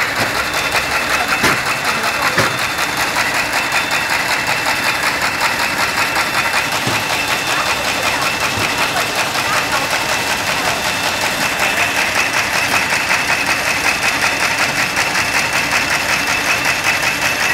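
Paper folding machine running steadily at speed, a fast, even mechanical clatter as sheets are fed, folded and carried out on the delivery belts.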